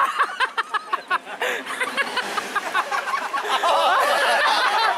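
People laughing in quick short bursts, followed about three seconds in by several voices talking over one another.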